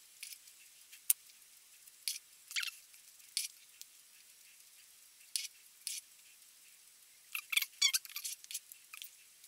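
Kitchen knife scraping the salt and herb crust off a slab of cured pork fat (salo): short, dry scratching strokes with pauses between them, a sharp click about a second in, and a quick run of scrapes near the end.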